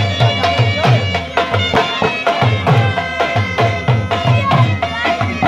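Traditional Hazara folk dance music with a fast, steady beat of deep drum strokes, about three or four a second, under a held melody line.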